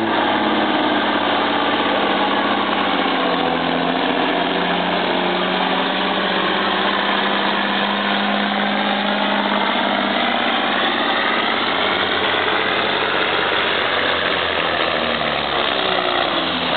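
Kenworth semi tractor's diesel engine running hard under load as it drags a truck-pull sled, a loud steady drone whose pitch slowly climbs partway through.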